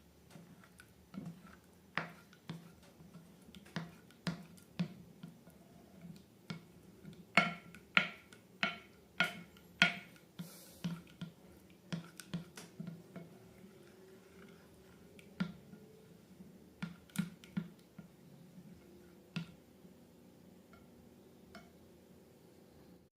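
Slime being worked by hand, giving a string of sharp, irregular clicks and pops that come fastest and loudest about a third of the way in, then thin out.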